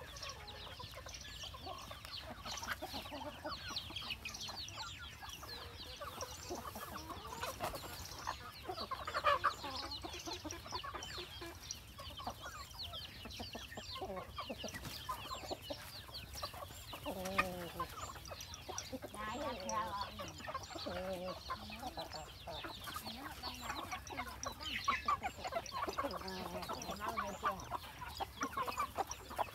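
Chickens clucking and chirping almost without pause, many short calls overlapping, with a few lower, longer clucks now and then.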